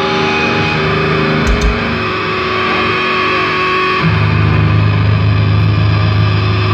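Live blackened thrash metal band playing loud: distorted electric guitars over bass and drums, settling into a held low chord about four seconds in.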